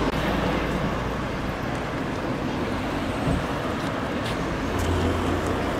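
Steady roadside traffic noise with a low engine hum that swells briefly near the end.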